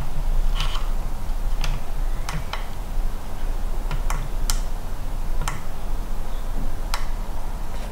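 Irregular sharp plastic clicks and taps, about nine in all, from hands handling a small plastic 1/16 RC truck and its transmitter, over a steady low hum.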